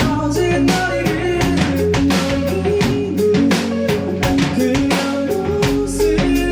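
Rock band playing live, drum kit hitting a steady beat under bass and electric guitar, in an instrumental stretch of the song.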